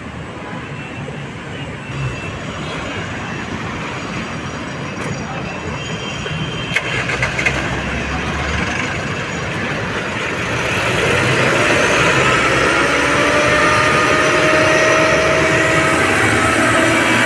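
Tilt-bed tow truck's engine running, getting louder about ten seconds in as it speeds up to drive the bed hydraulics, with a whine that climbs slowly in pitch. A short run of clicks comes about seven seconds in.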